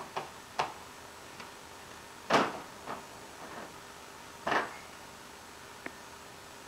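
Plastic baby pool knocking and creaking in short, scattered bumps as a baby grips and leans on its rim; the two loudest come about two and four and a half seconds in.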